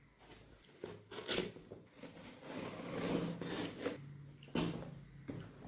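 Utility knife slitting the packing tape on a cardboard box: a run of scraping, rasping cuts with the cardboard scuffing and flexing, and a sharper stroke about four and a half seconds in.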